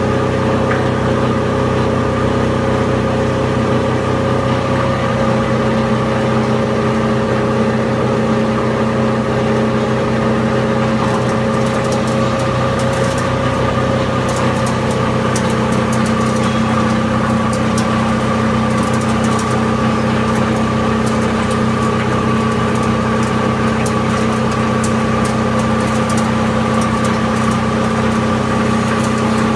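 Plastic film agglomerator (densifier) for PP/PE film running: a loud, steady machine hum with several steady tones. From about eleven seconds in it is joined by scattered sharp ticks and crackles.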